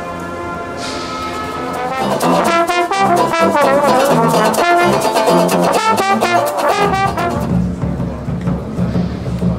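Small brass band of trumpet, trombone, sousaphone and banjo playing. It holds long notes at first, then plays a busy, lively passage from about two seconds in, which thins to low held notes near the end.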